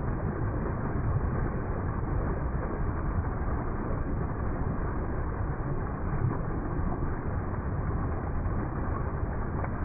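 Small waterfall splashing down onto rocks and churning into the pool below: a steady, unbroken rush of water, heaviest in the low rumble.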